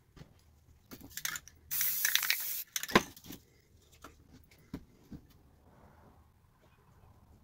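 Aerosol spray-paint can hissing in two or three short bursts, the longest lasting about a second, then a sharp knock about three seconds in, followed by light ticks and scratches of a tool on the painting.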